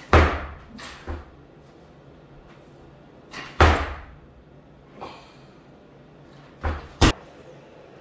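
Loaded barbell with bumper plates clanking: two loud metallic crashes with a ringing tail, about three and a half seconds apart, as hang power cleans are caught, with smaller knocks between. Near the end there are two quick impacts as the bar is dropped onto the platform.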